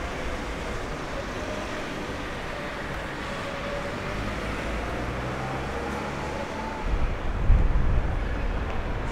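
Steady outdoor background noise, like distant traffic, with a low buffeting rumble on the microphone for about two seconds near the end.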